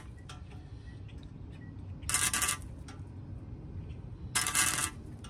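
Flux-core wire-feed welder striking two short tack welds on steel exhaust pipe, each a crackling buzz about half a second long, about two seconds and four seconds in.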